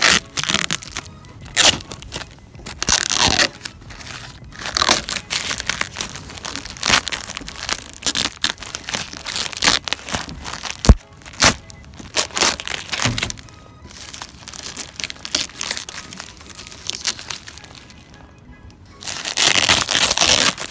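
Plastic sheeting and tape being ripped and crumpled off a broken car sunroof, in irregular bursts of tearing and crinkling, with background music.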